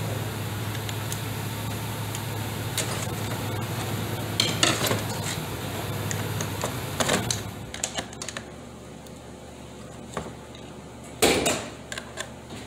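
Metal tool clinking and scraping against the parts of a 4T40E automatic transmission's aluminium clutch housing, in scattered knocks with a louder clatter near the end. A steady low hum runs underneath and stops a little past halfway.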